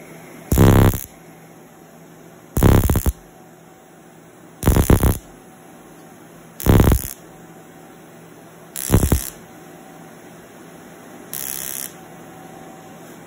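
Erbium resurfacing laser (MicroLaserPeel / ProFractional) firing in buzzing bursts of about half a second, six times roughly every two seconds, each burst scanning one patch of skin; the last burst is fainter. A faint steady hum lies between the bursts.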